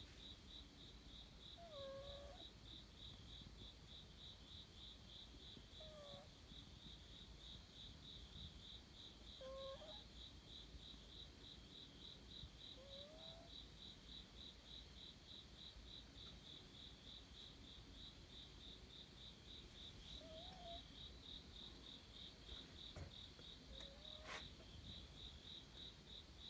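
Faint snoring of a sleeping cat: a short squeaky, whistling note on its breaths, six times, a few seconds apart. Behind it, a steady, rapid high-pitched chirping runs at about four pulses a second.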